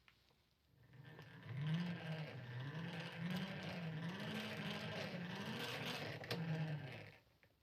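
Old Soviet-made hand-cranked grinder being turned by hand, its gears and wheel whirring, the pitch rising and falling about once a second with each turn of the crank.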